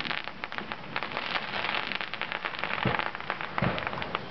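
Fireworks crackling: a dense, rapid patter of small pops from crackling stars, with a few deeper booms in the second half.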